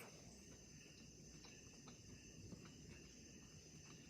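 Near silence: a faint steady high-pitched background tone and hiss, with a few faint small clicks.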